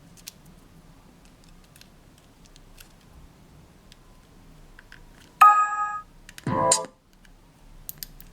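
Faint clicks from handling the speaker, then about five seconds in the See Me Here BV270 Bluetooth speaker plays a loud, bright electronic chime that fades out, followed a second later by a short swooping tone: the speaker's prompt sounds as it powers up or switches to playing from the microSD card.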